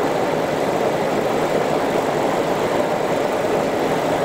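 PP/PET strapping production line running, a steady machine hum with no change in pace, as strap is drawn through the rollers and wound onto the reels.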